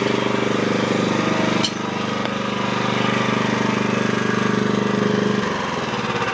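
Frontier OS35 sawmill's gasoline engine running steadily with a sharp click about two seconds in, then shut off about five seconds in and winding down to a stop. It is being switched off after the carbide band blade broke mid-cut.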